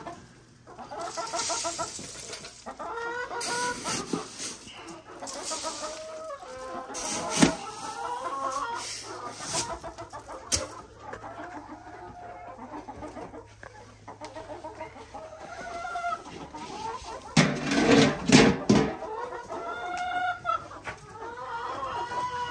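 A flock of chickens clucking and calling at feeding time as feed and scratch are thrown to them, with rustling and clattering from the feeding; the loudest rustling comes about three-quarters of the way through.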